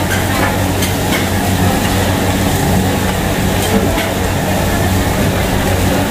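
A steady, loud machine drone with a low hum and an even rushing noise, with a few faint clicks.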